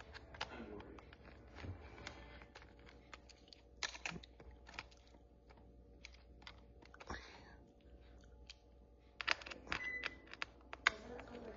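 Light scattered clicks and taps of hands handling the parts of an opened laptop, with a quicker run of clicks a little over two-thirds of the way in.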